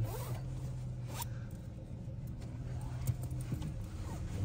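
Dodge Charger's engine running steadily at low revs, heard from inside the cabin, with a short rising zip-like sound about a second in.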